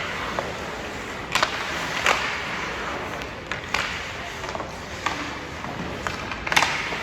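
Sharp clacks and knocks, five or so at uneven intervals, over a steady scraping hiss, as of game play in a large hall or rink.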